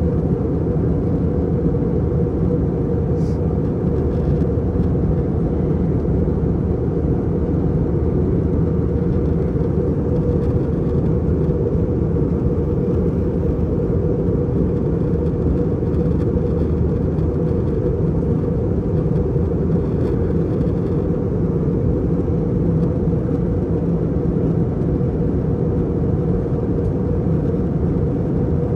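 Steady low roar of the airflow and engines heard from inside the cabin of a JetBlue Airbus A321 in flight, even in level throughout.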